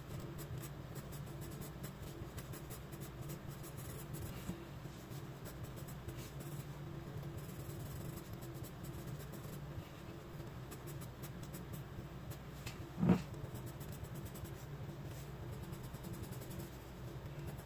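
Graphite pencil scratching across sketchbook paper in many quick, short hatching strokes, over a low steady hum. A single knock about two-thirds of the way through is the loudest sound.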